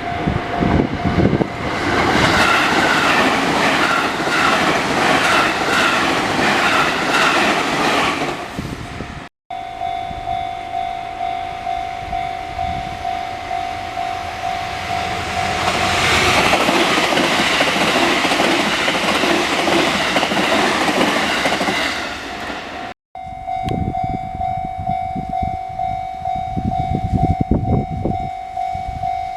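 Level crossing alarm ringing over and over while trains pass on the Tōkaidō Line, wheels clattering over the rail joints. The sound breaks off briefly about nine seconds in and again near 23 seconds, where it jumps to another passing train with the alarm still ringing.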